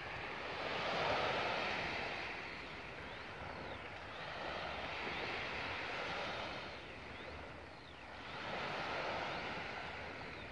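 Small waves washing onto a sandy shore, a steady hiss of surf that swells and ebbs every few seconds.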